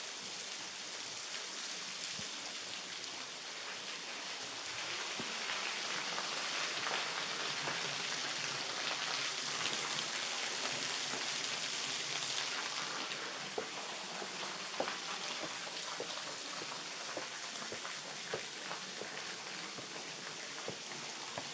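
Steady splashing of falling water from a small cascade, swelling louder in the middle and easing off again. A few sharp clicks in the second half.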